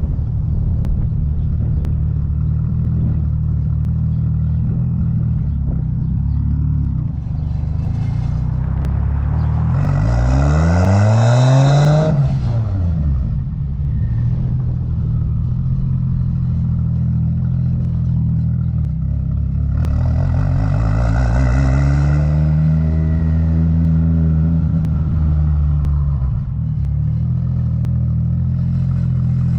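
Turbocharged 2JZ straight-six in a 1987 Toyota Supra running under way on the car's stock boost of about 7 pounds, with no boost controller fitted. About ten seconds in it revs up hard, with a rising note and a rushing hiss, then drops sharply at a gearshift. Around twenty seconds in it pulls again, and the note rises and then falls away slowly.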